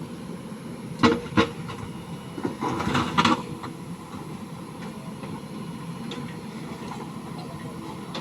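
JCB 3DX backhoe loader's diesel engine running steadily, with two sharp metallic clanks about a second in and a short rattling clatter around three seconds in, as the machine works a concrete culvert section.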